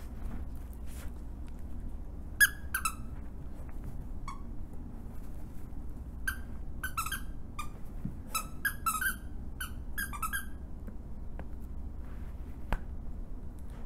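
The squeaker in a plush dog toy squeaking as a rat terrier bites and shakes it: about a dozen short, high squeaks in clusters, stopping about ten and a half seconds in.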